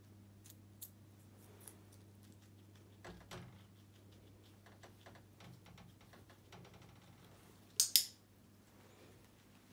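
A guinea pig eating food from a hand, giving small, crisp chewing ticks that come in runs. Scattered clicks sound throughout, and two sharp, loud clicks come close together near the end, over a faint steady low hum.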